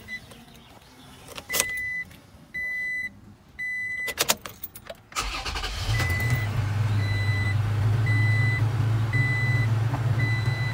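Toyota Tacoma started with the key: three short dashboard beeps and a click or two as the key turns. The engine catches about five seconds in and settles into a steady idle. A dashboard chime keeps beeping a little under a second apart.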